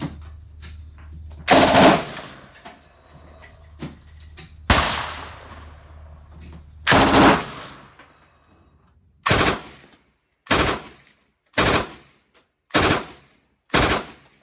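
Mk 46 belt-fed 5.56 mm light machine gun firing three short bursts of automatic fire, a couple of seconds apart. In the second half, a similar belt-fed gun fires evenly spaced single reports about once a second.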